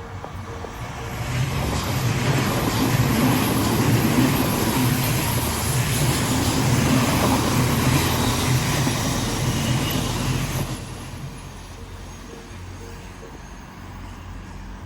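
Odakyu Line electric train passing over a level crossing: the noise of wheels on rail builds about a second in, holds for about nine seconds, then falls away sharply. The crossing's warning bell rings in an evenly repeating tone at the start and again after the train has gone by.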